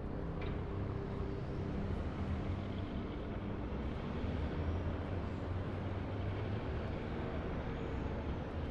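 Steady seafront ambience: a continuous, deep rush of surf and wind with no distinct events.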